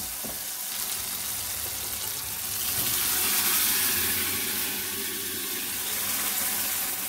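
Boiled white peas and potatoes in their cooking water poured from a steel pot into a kadai of hot masala: a steady pouring and splashing of liquid, loudest about three to four seconds in.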